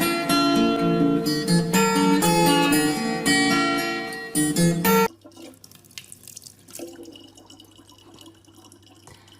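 Plucked acoustic guitar background music that cuts off abruptly about five seconds in, leaving a quiet stretch with a faint steady low hum.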